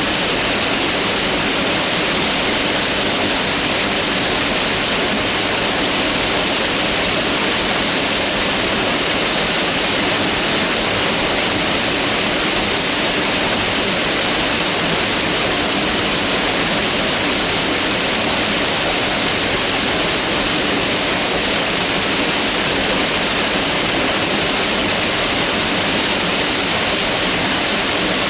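Mountain river rushing steadily over rocks, a dense, unchanging hiss of water.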